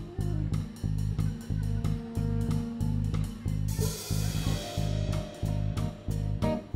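Live band playing an instrumental groove on electric guitar, bass guitar and drum kit over a steady, even pulse. There is a cymbal crash about four seconds in, and held notes ring over the top.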